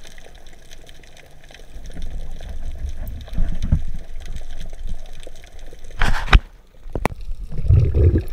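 Underwater sound picked up by an action camera in its housing: low rumbling and sloshing water movement, with a short sharp noise about six seconds in and a faint click just after.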